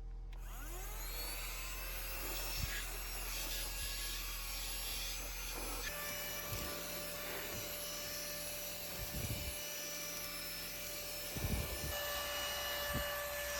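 Handheld 12-volt car vacuum running steadily with a motor whine over a hiss of rushing air; the pitch of the whine shifts about six seconds in, and a few faint knocks come through.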